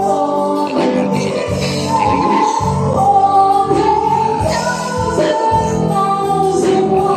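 Music with singing: held sung notes over a steady instrumental accompaniment.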